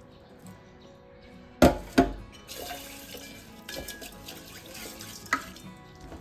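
Two sharp clatters of kitchenware about a second and a half in, then water running from a kitchen tap for about three seconds, with faint background music.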